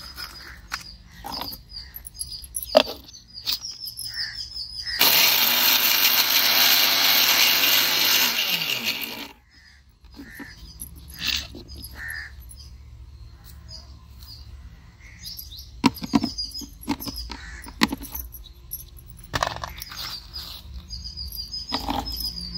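Electric mixer grinder with a steel jar grinding biscuits to powder. It starts about five seconds in, runs loudly for about four seconds, then winds down with a falling hum when it is switched off. Knocks of the jar and lid being handled come before and after, with birds chirping in the background.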